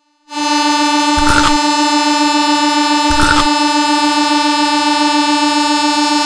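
Diesel train horn sound effect held on one steady, unbroken note, with two short noisy bursts underneath it, about two seconds apart.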